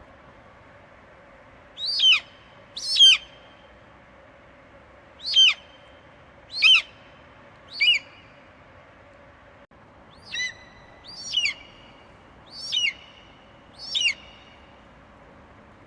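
Eagle giving shrill, high-pitched cries, about nine short calls each falling in pitch, in two runs with a brief pause in the middle. A faint steady hiss lies behind them.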